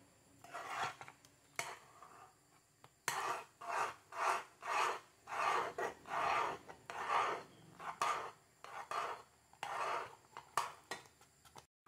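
Metal spoon scraping the bottom and sides of a metal pot while stirring thick, boiling natilla (milk and cornstarch custard), a run of rhythmic scraping strokes about one and a half a second. It grows louder and more regular about three seconds in.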